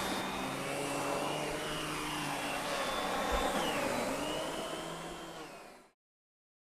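Miele canister vacuum with an SEB 236 electric power nozzle running while vacuuming, its motor tones dipping in pitch and recovering about four seconds in. It fades out and stops near the end.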